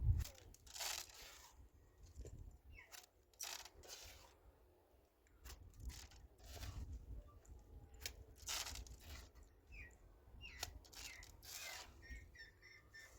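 Faint, irregular brief scrapes and rustles, a dozen or so spread unevenly, over a low rumble.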